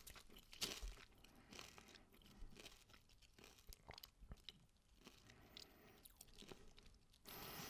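Potato chips, Lorenz Crunchips African Style, being chewed with a crisp crunching, louder in the first second or so and thinning out as the chewing goes on. A short louder noise comes near the end.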